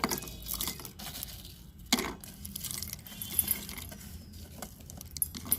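Dry-roasted whole spices such as cloves, black pepper and cardamom being tipped into a mixer-grinder jar: scattered clicks and rattles of hard seeds and pods landing in the jar, with one louder knock about two seconds in.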